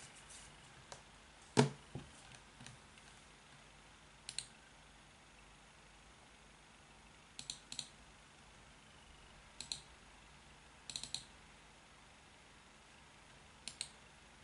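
Computer mouse clicking in short pairs and triplets every few seconds, with one louder knock about one and a half seconds in.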